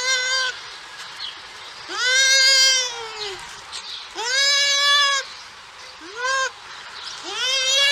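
An animal bleating in repeated calls, about five in all, each rising at the start and then holding a high, steady pitch for up to a second and a half, with short gaps between them. The fourth call is short.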